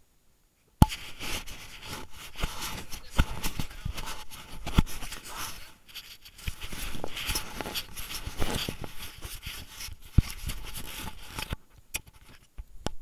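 Handling noise on a Soocoo S60 action camera: a sharp knock about a second in, then continuous rubbing, scraping and irregular clicks and knocks against the camera, thinning out near the end.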